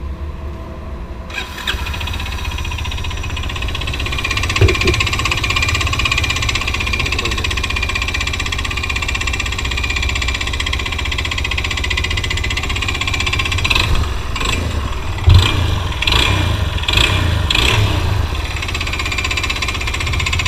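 Yamaha motorcycle's air-cooled single-cylinder engine running at idle with a loud top end, the riders' complaint, though its oil has been checked and is fine. There are a few short louder bursts in the second half.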